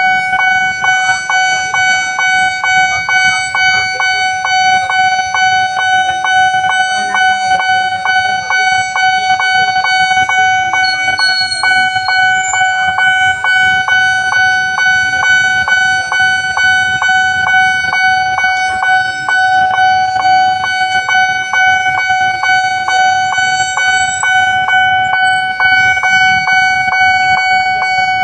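Railway level-crossing warning alarm sounding continuously: a steady high electronic tone with a regular beat about twice a second, signalling that a train is approaching.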